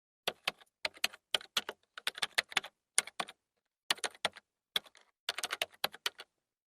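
Typing on a computer keyboard: irregular key clicks in short runs with brief pauses, stopping shortly before the end.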